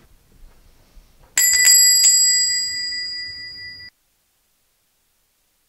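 A small metal bell rings, struck about four times in quick succession, then its high ring fades and cuts off abruptly into silence.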